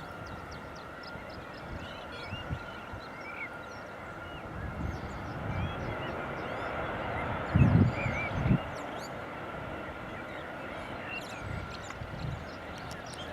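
Small birds chirping over a steady hum of distant aircraft engines, with a tone that holds throughout. The hum swells a little towards the middle, and two low thumps come a little before and after the eight-second mark.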